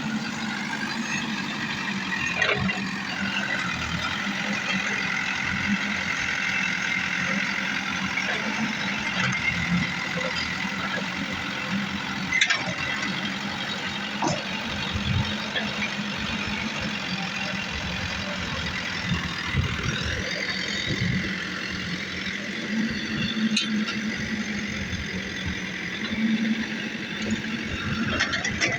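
JCB backhoe loader's diesel engine running steadily as the machine works, its note rising and falling a few times as it revs under load. Several sharp metallic knocks break through, the loudest about twelve seconds in.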